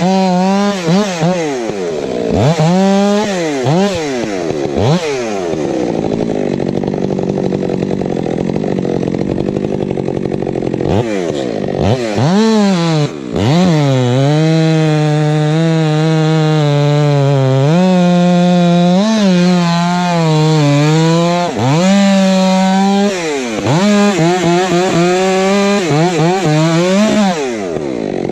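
Stihl MS 462 chainsaw, fitted with a Westcoast Saw Bark Box dual-port muffler, running at high revs while sawing through a log. Its engine pitch repeatedly drops and climbs back as it cuts.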